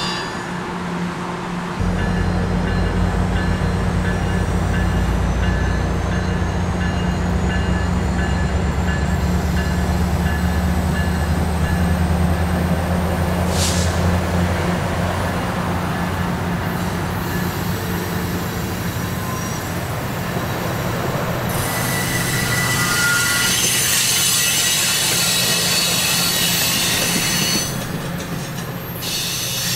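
MARC commuter train's steel-wheeled passenger coaches rolling around a curve, with a steady low rumble through the first half and thin high wheel squeal against the curved rail. The squeal grows louder and higher a little past two-thirds through, then drops back near the end.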